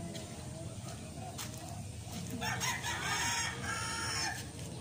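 A rooster crows once, a single call of about two seconds starting a little past halfway.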